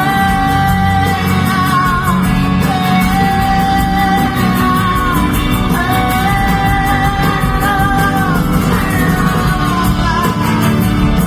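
Live rock band playing a long instrumental stretch of a song. Long held melody notes slide slightly between pitches over a steady, full backing.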